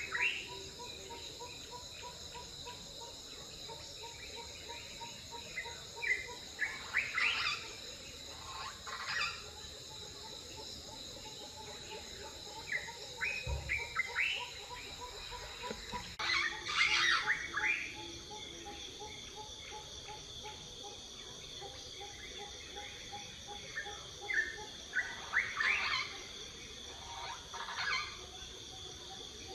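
Small birds chirping in short bursts every few seconds over a steady high-pitched drone of insects.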